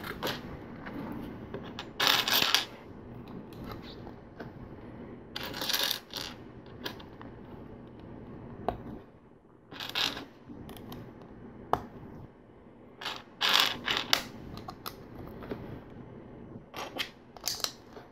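Plastic LEGO bricks clicking and rattling as pieces are picked out of a loose pile and pressed onto a plate, in short bursts every few seconds.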